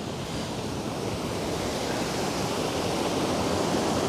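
Steady rushing of a mountain stream, growing a little louder near the end.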